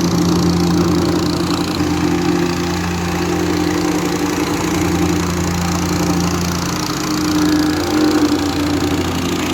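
Diesel engine of heavy asphalt-paving machinery running at a steady speed, with a constant low hum.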